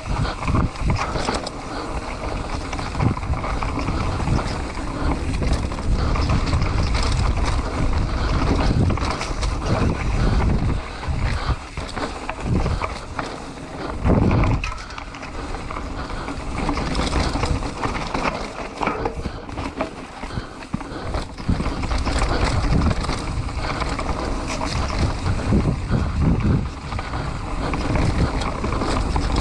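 Mountain bike riding down a rough dirt trail: tyres rolling and the bike rattling, with frequent knocks over bumps, under a heavy rush of wind on the microphone.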